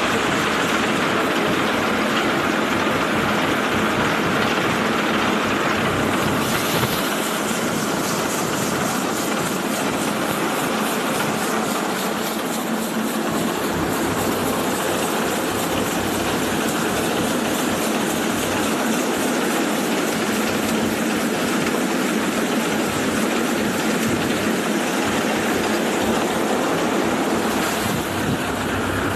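Pearl millet threshing machine running steadily, a continuous mechanical drone and rattle.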